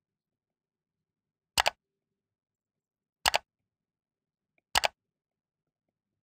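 Three computer mouse-click sound effects from a subscribe-button animation, about one and a half seconds apart, each a quick double click. The clicks go with the like button, the subscribe button and the notification bell.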